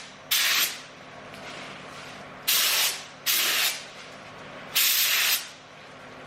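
DeVilbiss GPI spray gun with a 1.8 nozzle spraying epoxy primer in four short bursts of about half a second each, as the trigger is pulled and released.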